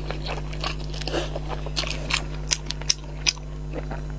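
A person chewing a mouthful of noodles, with irregular wet mouth clicks and smacks a few times a second.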